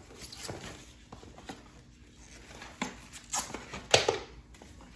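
Packaging and small parts being handled: scattered light taps and knocks, with a few louder rustles of packaging in the second half.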